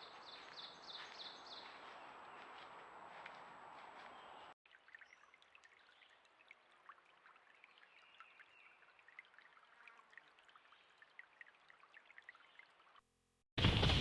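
A bird calls a quick run of about eight short, high, falling notes over a faint steady high-pitched tone. After a cut come faint, scattered ticks like dripping.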